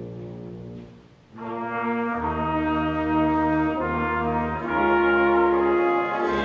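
Concert wind band playing. A held chord dies away, and about a second and a half in the brass come in with sustained chords, low brass joining underneath a moment later; the chords shift a couple of times.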